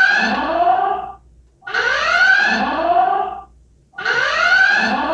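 Electronic alarm sounding in repeated rising whoops, one about every two seconds.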